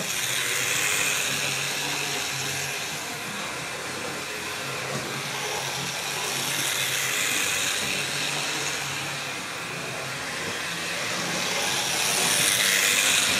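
Hornby model locomotive of 46201 Princess Elizabeth running round a circuit of model railway track, its freshly cleaned wheels on the rails. A steady motor whirr and wheel rumble rises and falls, getting louder about every six seconds as it passes close by.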